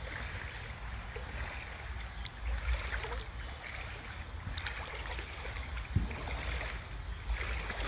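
Outdoor ambience: a low rumble of wind on the phone's microphone over a faint wash of running water, with a few light knocks.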